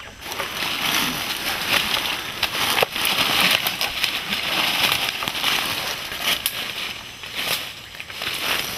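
Dry leaf litter and twigs crackling and rustling as a person crouches and moves through rainforest undergrowth, with a few sharp snaps.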